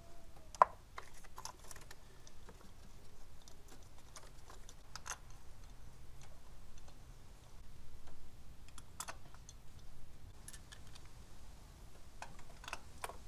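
Hand ratchet clicking in short runs as new spark plugs are threaded and tightened in the plug wells, with light metal tool taps. A single sharp click about half a second in is the loudest.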